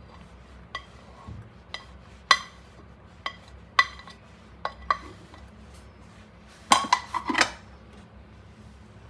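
A spoon clinking against ceramic bowls as soup is scooped into a small cup: a string of separate clinks, each with a short ring. Near the end comes a louder cluster of clatters as a ceramic plate is set down.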